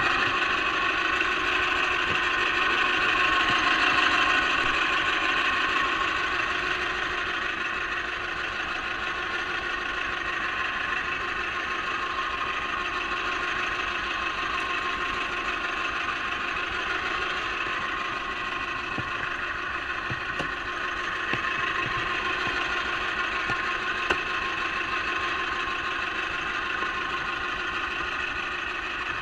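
Small fishing boat's engine running steadily at trolling speed, a constant even drone.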